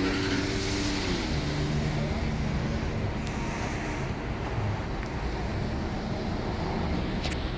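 Steady road traffic noise: cars running and passing on a busy street.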